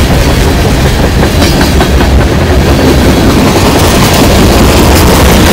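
CSX freight train's cars rolling past close by: steel wheels on the rails make a loud, steady rumble, with clicks as the wheels pass over the rail joints.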